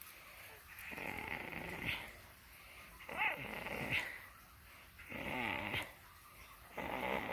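Rottweiler puppy making noisy breathy grunts while playing, four of them about two seconds apart, each lasting about a second.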